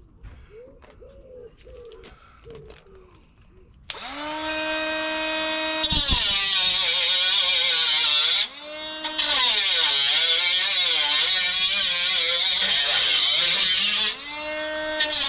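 A handheld power cutter, most likely an angle grinder, spins up about four seconds in, then cuts into the old car's sheet-metal body with a loud, wavering screech. It briefly drops back to a steady free-running whine twice while the cut is repositioned.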